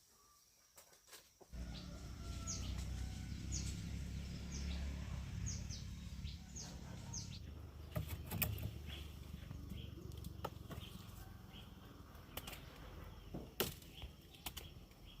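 A bird repeating short, high, falling calls over a low rumbling noise, followed by a few sharp clicks or snaps.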